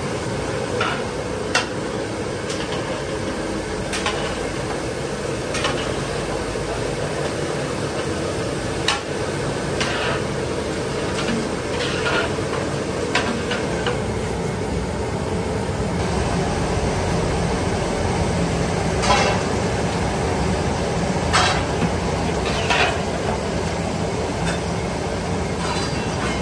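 Food frying and being stirred in a large metal cooking pot: a steady rumbling hiss, with scattered sharp scrapes and clinks of a metal spoon against the pot.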